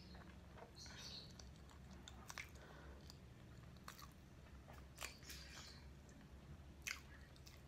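Faint chewing of soft, cream-filled garlic cheese bread, with scattered wet mouth clicks and smacks.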